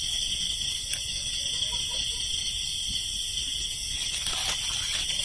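Steady chorus of night insects such as crickets trilling, with faint rustling near the end.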